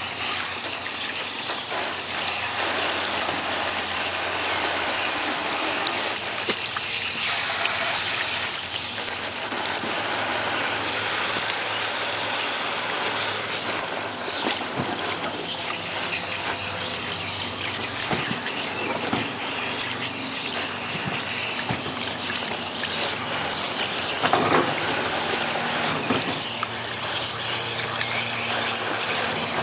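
Garden hose spraying a steady stream of water into a plastic kiddie pool, a continuous rushing and splashing as raccoons paw about in the water. A brief sharper splash or knock comes about 24 seconds in.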